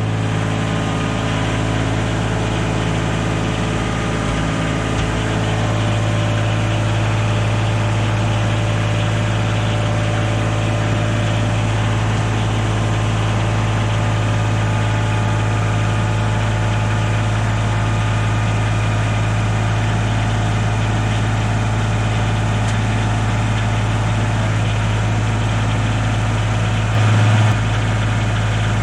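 An engine idling steadily with a constant low hum, briefly a little louder for about half a second near the end.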